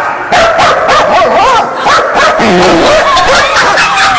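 Dog barking and whining in a rapid string of high yips, with no pause between them.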